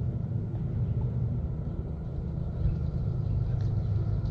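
Low, steady rumble of a CSX rail vehicle approaching along the track.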